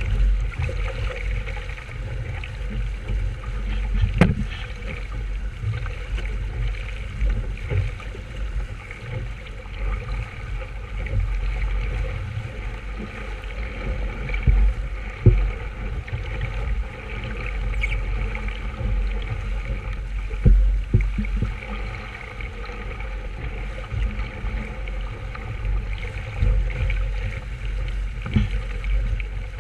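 Water sloshing and gurgling against the hull of a small sailing boat under way, over a heavy, uneven low rumble, with an occasional sharp knock.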